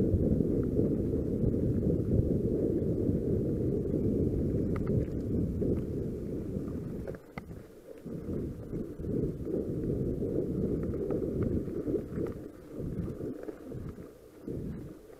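Wind rumble on the microphone of a mountain bike's helmet or handlebar camera while riding. It is steady for the first seven seconds, then eases and comes in gusts, with a few faint clicks from the bike.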